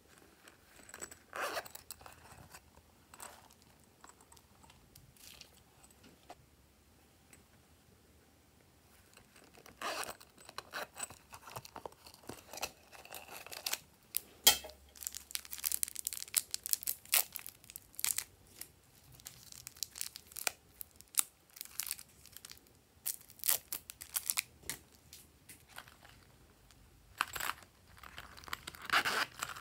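Plastic packaging and small plastic slime containers crinkling, crackling and tearing as they are handled and opened, in irregular bursts with sharp clicks. A few short bursts come in the first ten seconds, then a dense run of crackling, and more near the end.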